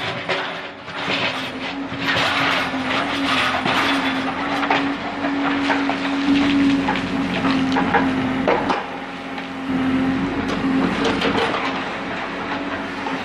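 Backhoe's diesel engine running steadily under load, with irregular clanks and scraping as it digs through stony ground.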